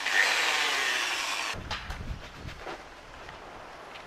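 Corded electric drill spinning a wire cup brush in the air, a steady whir that eases a little and then cuts out about a second and a half in, leaving faint handling knocks.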